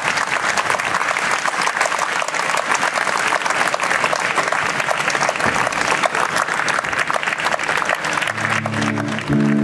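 Audience applauding steadily for a live band. Near the end the band comes in under the clapping with held notes.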